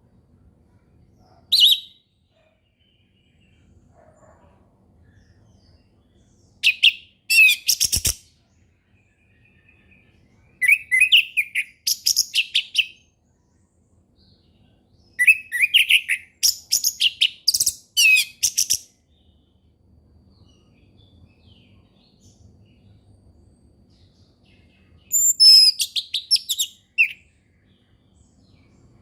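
Orange-headed thrush singing in five bursts of quick, varied high notes, separated by pauses of a few seconds.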